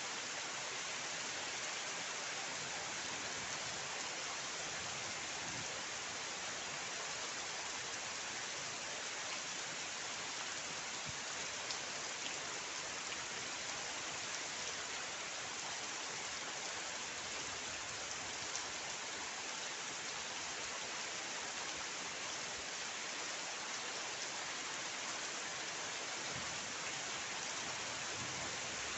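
Steady rain falling: an even, unbroken hiss with a few faint ticks of single drops.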